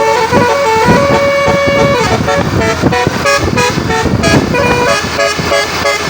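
Indonesian telolet bus horn, a multi-tone air horn, playing a tune: a quick run of short stepped horn notes, with one longer held note about a second in.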